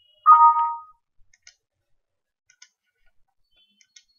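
A short electronic computer alert chime, two steady pitches held about half a second, then soft computer mouse clicks, several in quick pairs like double-clicks.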